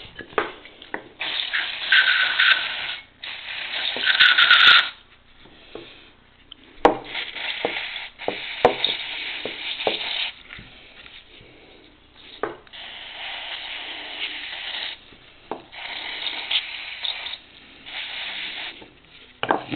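Aerosol cleaner sprayed onto carburetor parts in about six hissing bursts of one to three seconds each, with small clicks and knocks of the parts being handled in between.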